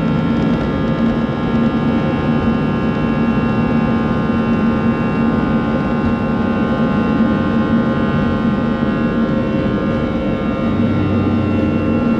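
Cabin sound of an Airbus A320-212 during its takeoff roll: its CFM56 turbofan engines run steadily at takeoff thrust with a layered whine over wheel and airflow rumble. A low hum joins near the end as the aircraft rotates.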